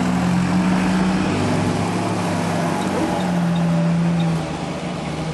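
Jeep engine running with a steady drone that changes pitch a few times and eases off a little near the end, over a steady hiss of wind and tyre noise.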